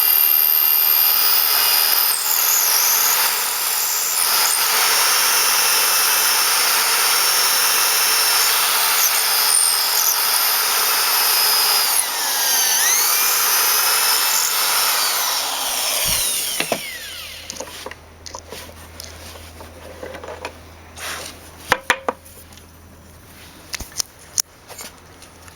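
A power grinder grinding the secondary bevel on a hardened silver-steel knife blade: a loud, steady grinding with whines that shift in pitch. About 16 seconds in it stops, leaving a low hum and a few scattered clicks.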